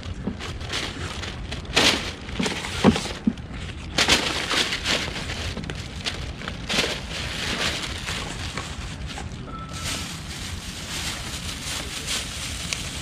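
Plastic bags rustling and crinkling in irregular bursts as they are handled, over a steady low rumble.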